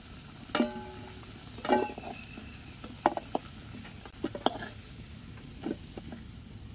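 Steel spatula scraping and clinking against a kadai and a steel plate as fried potatoes are lifted out of hot mustard oil. There are two ringing clangs in the first two seconds, then scattered light clicks, while the oil sizzles quietly underneath.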